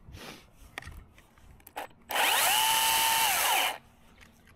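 Battery chainsaw revved in one short burst about two seconds in: the motor whine rises quickly, holds steady for about a second and a half, then winds down. A few light clicks and crackles of branches come before it.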